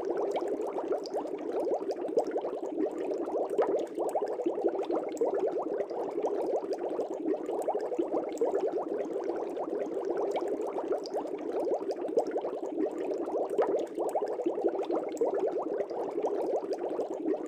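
Air bubbles streaming through water in a fish tank aquarium: a steady, dense bubbling made of many rapid small pops.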